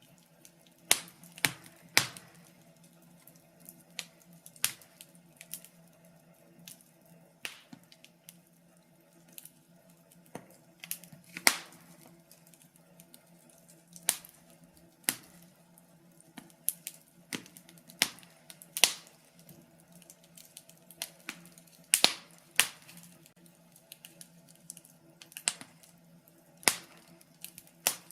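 Wood fire crackling in a fireplace: irregular sharp pops and snaps of burning logs, some single and some in quick clusters, over a faint steady low hum.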